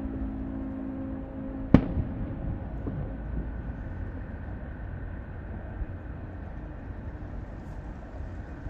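A firework going off with one sharp, loud bang a little under two seconds in and a smaller pop just after, over a steady low outdoor rumble. A low steady hum runs through the first few seconds.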